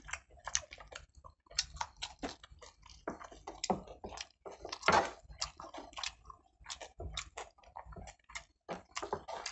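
Close-up chewing and biting of chicken pulao eaten by hand, with a chicken drumstick bitten into: irregular wet mouth clicks and smacks, several a second.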